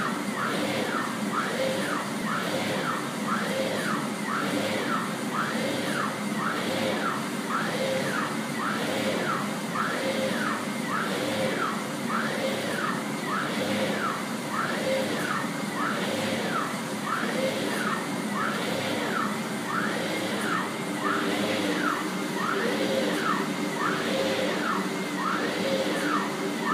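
Drive motors of a CNC gantry table whining as the gantry shuttles back and forth at about 1000 inches per minute. The whine rises and falls with each move, about three sweeps every two seconds, over a steady mechanical hum.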